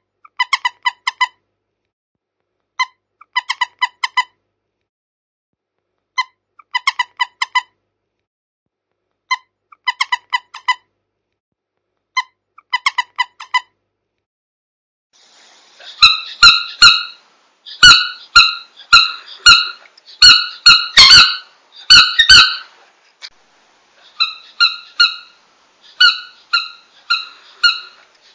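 Squeaky toy being squeezed again and again. For the first half it gives short runs of quick squeaks about every three seconds. From about halfway it gives louder, higher squeaks in quick succession with sharp clicks among them, then lighter squeaks near the end.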